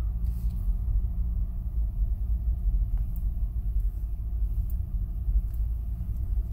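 A car driving, heard from inside the cabin: a steady low rumble of engine and road noise, with a few faint ticks.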